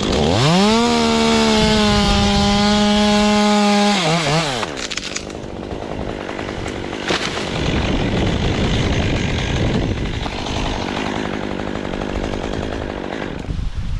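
Chainsaw revved up to full speed, held for about three seconds, then let back down about four seconds in. After that comes a steady rushing of wind and leaves.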